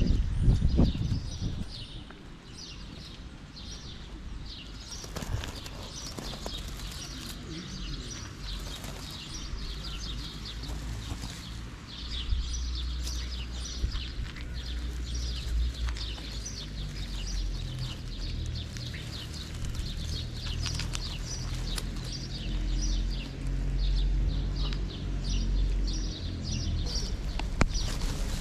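A calico cat chewing dry kibble, with a steady run of short crunching clicks. A low steady hum joins underneath about halfway through.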